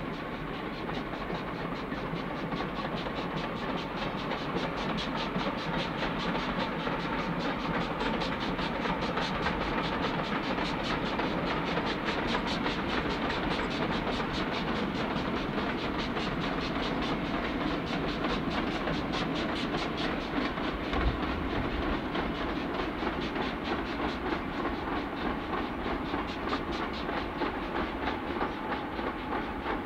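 Steam-hauled train running past, its exhaust beats and wheels making a rapid, regular beat over a continuous rumble. It grows louder over the first several seconds and eases a little near the end, with a single low knock about two-thirds of the way through.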